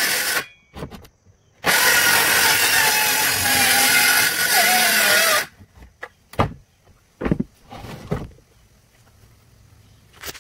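Handheld electric sander running against a wooden board, its motor pitch wavering as it is pressed and moved. It stops briefly about half a second in, starts again before two seconds and cuts off at about five and a half seconds. A few light knocks follow.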